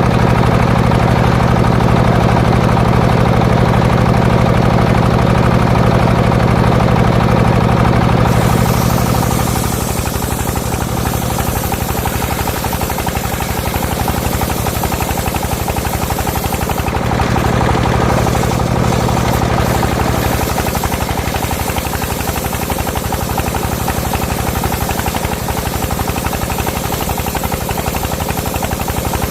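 Engine driving a homemade circular sawmill, running steadily with a fast pulsing beat. About eight seconds in a high hiss joins and the engine's low note drops, as the blade cuts into a coconut log.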